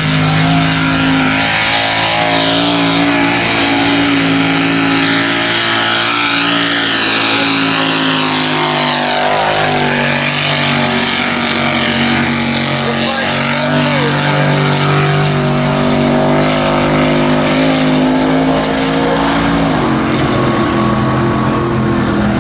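Small-block V8 mud truck running hard through a mud pit. The engine holds high revs and steps in pitch several times, over the hiss of mud and water spraying.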